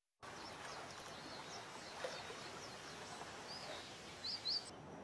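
Small birds chirping over a steady outdoor hiss, with two brighter chirps close together near the end.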